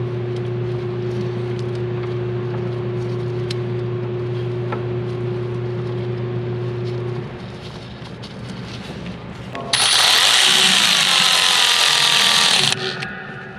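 A steady hum runs and stops about seven seconds in. Near the end a power ratchet runs for about three seconds with a loud hiss and a falling whine, tightening the nuts on a new part, then cuts off suddenly.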